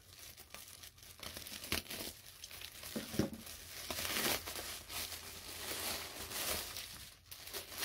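Plastic mailer bag being torn open and crinkled by hand: steady rustling and crinkling, with several louder rips along the way.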